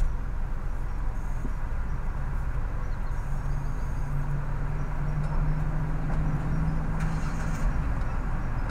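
Steady low engine rumble heard from inside a car's cabin, with a humming tone that swells from about three seconds in to about seven and a half seconds in.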